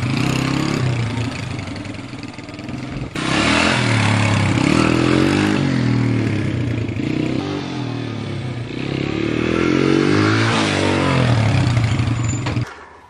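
Honda XR100's single-cylinder four-stroke engine running, revving up and easing off over and over so that its pitch rises and falls. It cuts off suddenly near the end.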